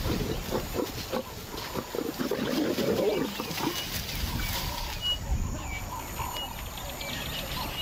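Lions growling and snarling, loudest about two to three seconds in, then quieter.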